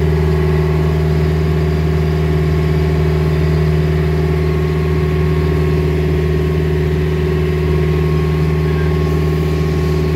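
A motor boat's engine drones steadily at cruising speed, an even hum that does not change, with water rushing past the hull.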